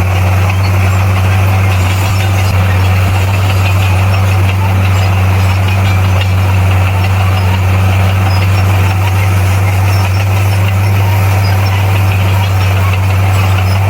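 Bulldozer's heavy diesel engine running steadily, a loud, even low hum at a constant pitch.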